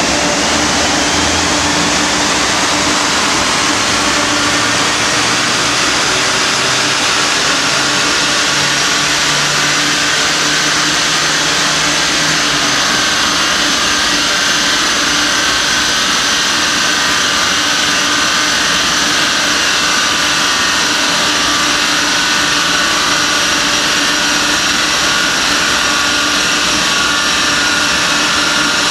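Chiptuned Audi 1.9 TDI four-cylinder turbodiesel running under load on a chassis dynamometer, its tyres and the dyno rollers whining higher and higher for about ten seconds and then holding at a steady pitch. The engine's low note drops away about twelve seconds in while the rollers keep spinning, all under a steady loud rush of noise.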